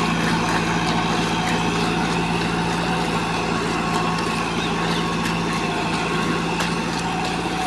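Combine harvester running steadily under load: a heavy engine drone with a steady whine from its machinery and faint scattered ticks.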